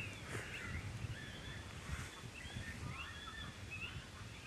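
Many overlapping high chirps, twitters and short warbling whistles of birdlike calls, over a low wind rumble on the microphone.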